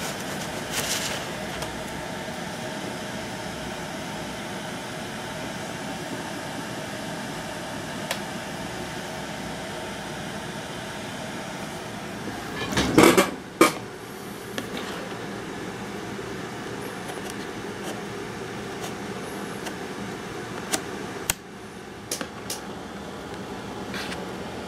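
Handling noise from a tablet and its packaging: scattered clicks and taps, with a loud clatter about halfway through, over a steady fan-like background hum.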